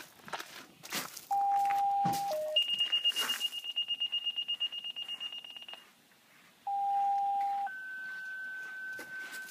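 Fire-department sequential paging tones over a radio: a one-second tone with a short lower tone after it, about three seconds of fast high-pitched beeping, then another one-second tone followed by a longer, higher tone. A few sharp clicks come in the first second or so.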